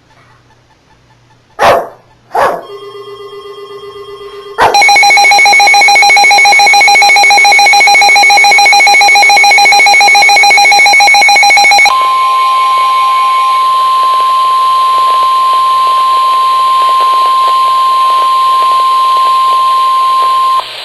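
Emergency Alert System warning tones for a flash flood warning. Two short loud bursts and a brief buzzing tone come first. Then a loud pulsing two-tone attention signal sounds for about seven seconds and switches to a single steady tone for about nine seconds, stopping just before the end.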